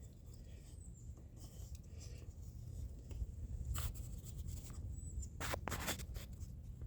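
Faint scraping and a few light clicks of engine parts being handled, over a steady low rumble, with the clicks bunched in the second half.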